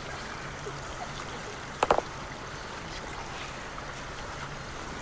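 Steady outdoor background hiss, with a short clatter of two or three quick knocks about two seconds in.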